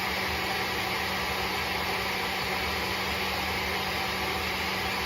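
Tineco Floor ONE S5 wet-dry vacuum mop running its self-cleaning cycle in the dock: a steady, even motor drone with a constant low hum under it, as the machine flushes its brush roller and suction channel.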